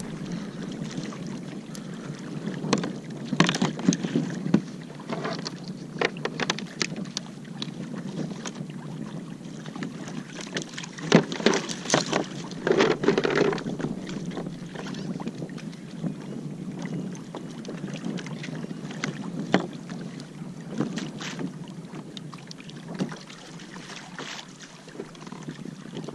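Water lapping against a kayak hull with wind on the microphone, broken by scattered clicks and knocks as a fish in a landing net is handled and unhooked. The knocks are loudest about eleven to thirteen seconds in.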